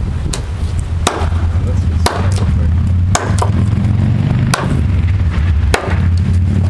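Repeated chops of a heavy blade biting into a bark-covered log, sharp strikes about one a second, some harder than others. A steady low rumble runs underneath.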